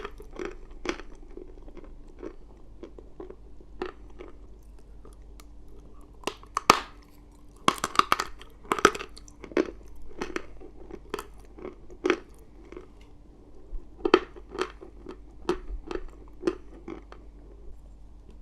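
A person biting and chewing pieces of dry chalk close to the microphone: irregular sharp crunches, sparse at first and coming thick and loud through the middle and later part.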